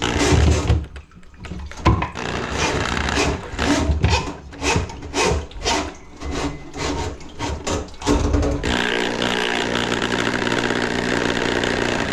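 Tool work on a grease-clogged kitchen drain line: a run of irregular rasping strokes, roughly two a second, then about three-quarters of the way in a motor-driven tool starts running steadily.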